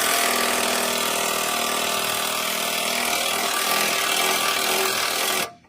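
Handheld power tool running at a steady speed, then cut off abruptly near the end.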